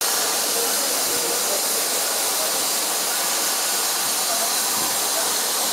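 Steady rushing hiss of a train hauled by a West Country class steam locomotive running along, heard from an open carriage window. It keeps an even level throughout with no distinct exhaust beats.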